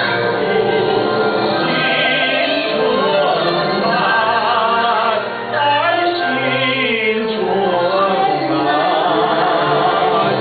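A voice singing a slow melody with wide vibrato, over sustained instrumental accompaniment.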